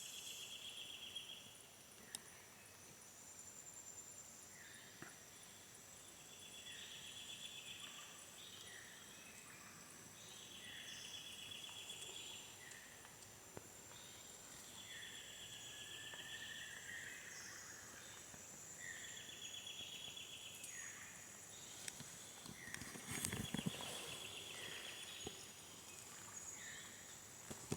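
Amazon rainforest ambience, faint. A steady high insect drone runs under a buzzy trill that repeats about every three to four seconds, with short chirping calls between. A brief louder noise comes about three-quarters of the way through.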